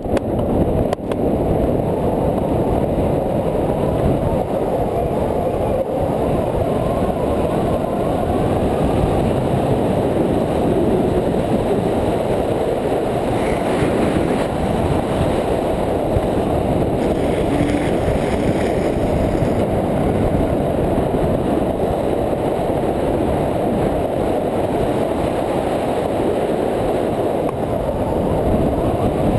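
Longboard wheels rolling fast on asphalt, mixed with wind rushing over the camera microphone: a steady low rumble. A higher scraping hiss joins twice, briefly around the middle, as the rider puts a gloved hand down and slides the board.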